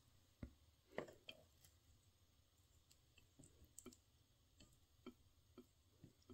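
Faint, scattered clicks and taps of wooden chopsticks against a ceramic plate and food as a rice ball is picked up and topped with stir-fried pork, the loudest knock about a second in.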